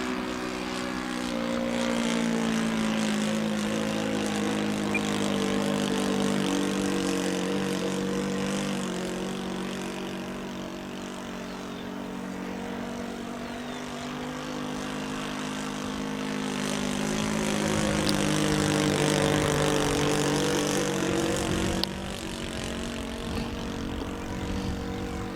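Radio-controlled Seagull Gipsy Moth model plane's OS 95 glow engine buzzing in flight, its pitch bending and its loudness swelling and fading as it passes overhead, loudest a little before the end, then dropping away.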